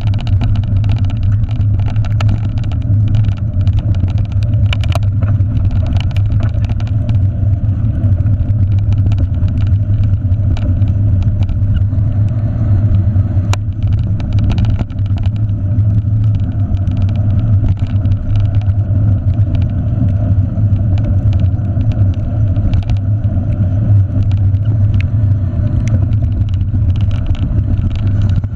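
Steady loud rumble of wind and trail noise on a handlebar-mounted camera as a mountain bike rolls fast over a dirt trail, with frequent small knocks and rattles from the bike jolting over bumps.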